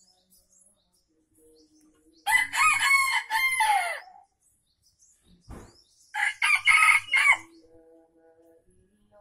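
Junglefowl rooster (ayam hutan) crowing twice, each crow a short call of a second or two, the two crows about four seconds apart.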